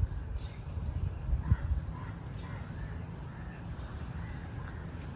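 Outdoor mangrove ambience: birds giving a series of short, arched calls over a steady high-pitched insect drone. A few low thumps come in the first second and a half.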